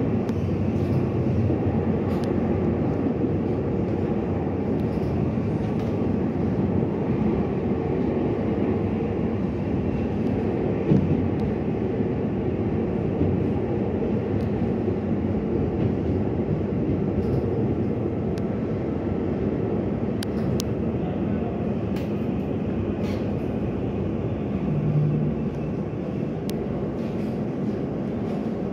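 Inside the carriage of a Taiwan Railways EMU800 electric commuter train: steady running noise of the wheels and motors on the track as the train pulls alongside a station platform. One sharp knock about a third of the way through, and a short low hum near the end as the noise eases slightly.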